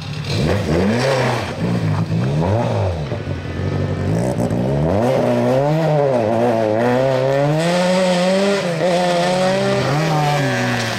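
Peugeot 306 rally car engine revving hard through a gravel hairpin: the revs rise and fall sharply a few times, then stay high with repeated rises and dips as the car accelerates away.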